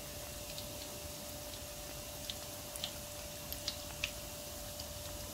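Beignet dough rings deep-frying in a pan of hot oil: a steady sizzle with small scattered pops, over a faint steady hum.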